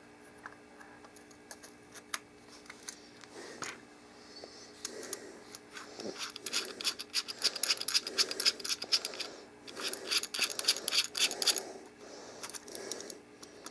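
Hard plastic and metal parts scraping and clicking as a camera light is fitted into a camcorder's shoe mount: a few single clicks at first, then several seconds of rapid scraping clicks with a brief pause.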